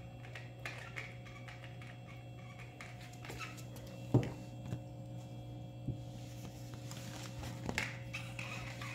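A steady low hum with scattered small taps and clicks, and one sharp knock about four seconds in, followed by a few lighter knocks.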